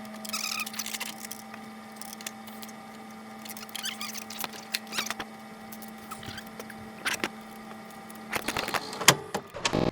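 Clicks, taps and small squeaks of screws being worked loose and a VCR's plastic and metal case being handled as it is opened, over a steady low hum that stops near the end. Louder clicks and knocks come in the last second or so.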